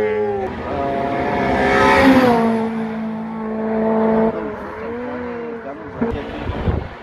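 Rally car driven hard past at high revs, its engine note stepping down in pitch and loudest about two seconds in as it goes by, then fading as it pulls away, the revs rising and falling.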